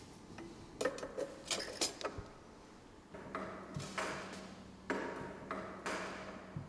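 Light metallic clicks and clinks as a perforated metal disc and fittings are set into a cloud chamber's base, a quick cluster of taps about a second in, then three longer scrapes of metal parts being worked in place.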